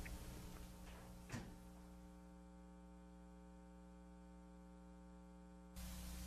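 Near silence: a steady electrical hum in the recording, with a couple of faint knocks in the first second and a half and background hiss returning near the end.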